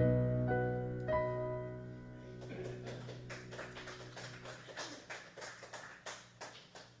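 A piano's closing chord ringing and slowly dying away, with a couple of last single notes in the first second. From about two and a half seconds in come soft, scattered taps of footsteps on the floor.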